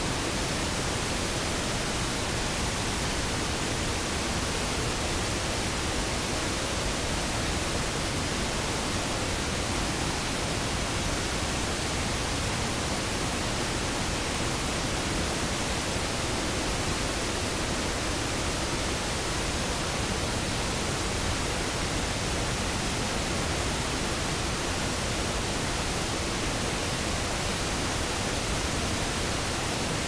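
Waterfall: heavy whitewater pouring over a rock ledge, a steady, unbroken rush of water noise.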